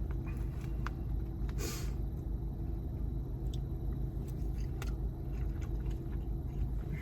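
Steady low rumble with a faint hum, under scattered small clicks and smacks of someone eating.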